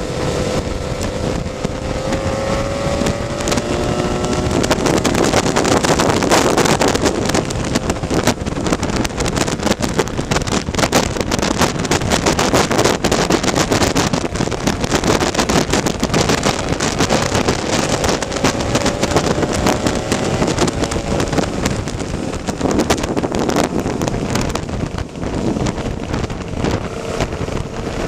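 Wind buffeting the microphone over a Lambretta scooter's two-stroke engine running at road speed, the engine note rising gently near the start and again a little past the middle.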